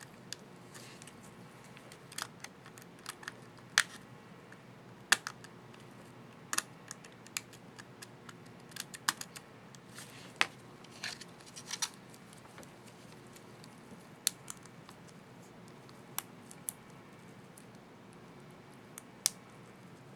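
Small plastic clicks and snaps, scattered irregularly, from a laptop keycap and its scissor-clip retainer being handled and snapped into place on the keyboard.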